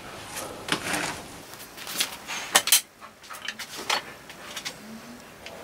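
Scattered light clicks and clinks of hard objects being handled, irregular and a few a second.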